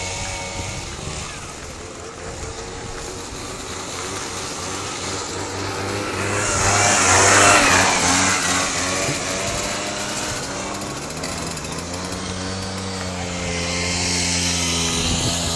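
Small moped scooter engine revving hard while its rear wheel spins on the ice in a burnout, rising to its loudest about halfway through; later the engine pitch rises and falls as it rides off.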